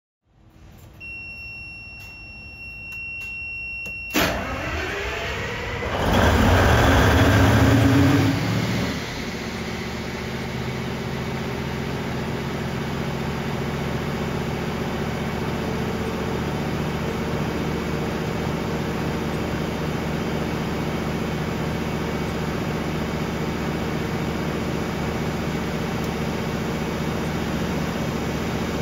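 Kohler 1600 kW industrial diesel generator set starting. A steady high electronic tone sounds for about three seconds. Then the engine cranks with a rising whine, fires and runs up loudly for a couple of seconds, and settles into a steady, even run.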